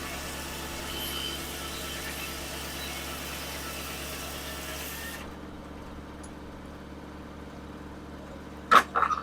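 Sawmill engine running steadily, with a hiss over it that stops about five seconds in. Near the end come two loud, sharp knocks about a third of a second apart.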